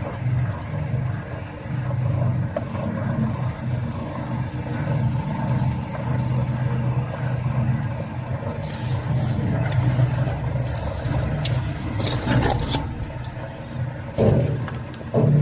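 Electric food grinder machine running, its motor humming steadily. From about halfway through come intermittent scraping and clattering noises, with a couple of loud knocks near the end, as the food is fed through and crushed.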